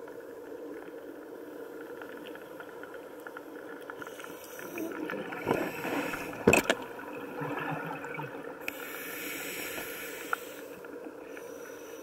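Underwater ambience picked up through a dive camera's housing: a steady low rush with crackling. It grows busier in the middle, with a sharp knock about six and a half seconds in as a bull shark brushes past the camera, then a stretch of hiss near the end.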